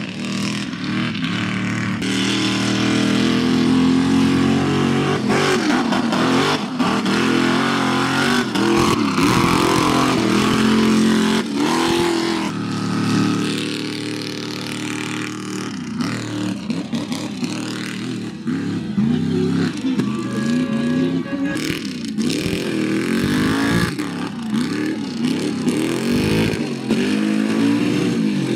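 Mega truck's engine revving hard, its pitch climbing and falling again and again as the throttle is worked.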